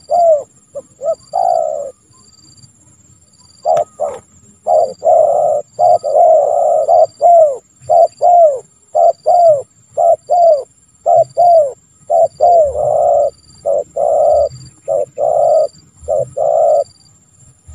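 Spotted dove (tekukur) cooing loudly in repeated phrases of short, downward-bending coos. There is a pause of about two seconds near the start, then a long, fast run of calls that stops shortly before the end.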